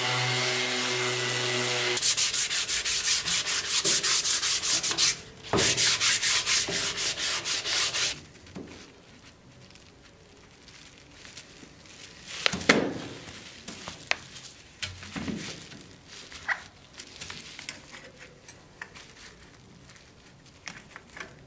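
Hitachi orbital sander running steadily on a wooden scabbard core. It gives way after about two seconds to loud, fast, regular rasping sanding strokes, about six a second, with a short break in the middle. After about eight seconds there are only quiet rustles and taps of leather and tape being handled.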